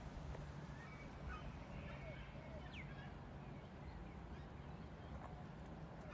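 Australian magpie chicks giving faint, short begging calls for food, scattered through, with a low steady rumble underneath.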